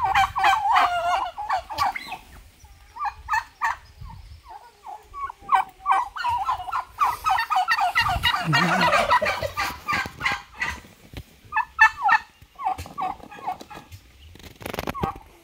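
Domestic turkeys gobbling: rapid warbling gobbles in repeated bursts, the longest running several seconds through the middle, with a couple of sharp clicks near the end.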